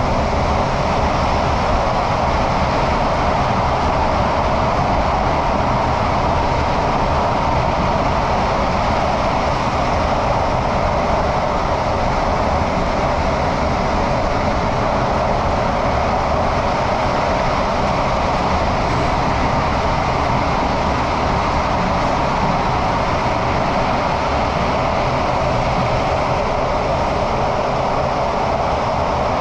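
Singapore MRT train (Thomson–East Coast Line) running at steady speed through an underground tunnel, heard inside the car by the doors: an even rushing noise over a low rumble.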